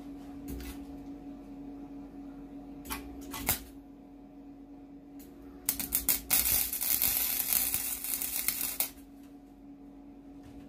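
Electric arc welder laying a weld bead on a steel lawn mower deck to fill in a crack. Two brief crackles come about three seconds in, then a loud, steady crackling weld of about three seconds that stops sharply, all over a low hum.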